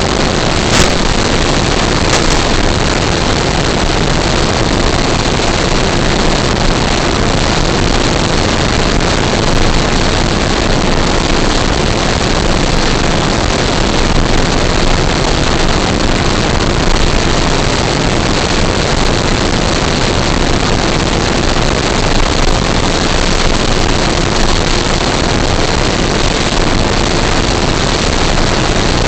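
Electric-powered RC scale Cessna 182 in flight: a steady rush of air and propeller noise with a faint, even motor whine. A sharp click comes about a second in.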